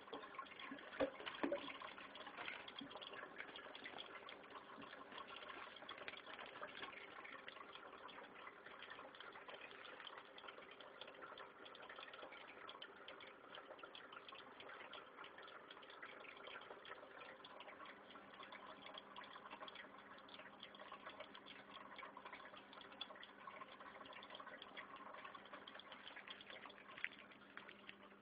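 Faint steady trickle of water in a turtle tank, with a few sharp knocks about a second in and a low hum that comes in past the middle.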